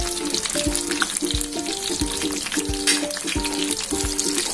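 Oil sizzling and bubbling as breadcrumb-coated cutlets shallow-fry in a pan, over background music with a steady beat of about three low thumps every two seconds.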